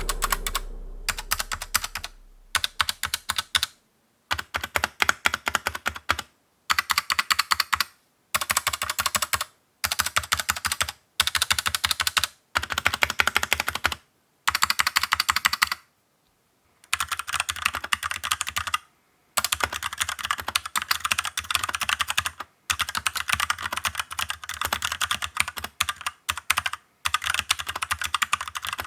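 Typing test on a 68-key mechanical keyboard with stock, unlubricated Huano brown switches: rapid runs of keystroke clacks in bursts of a second or two with brief pauses between them, the runs growing longer in the second half.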